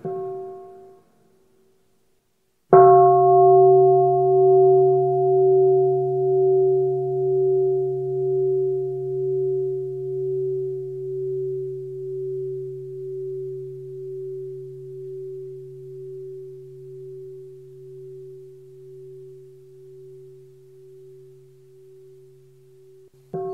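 A Buddhist bowl bell rings: a short fading ring at the start, then one full strike about three seconds in. The tone sustains for about twenty seconds, wavering slowly as it fades, and is cut off just before the end.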